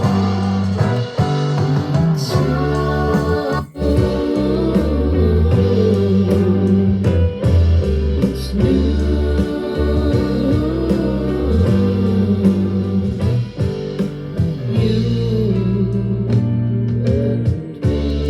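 A song with guitar and singing is played back through a portable Bluetooth speaker under test, with strong, prominent bass. The music breaks off for a moment about four seconds in.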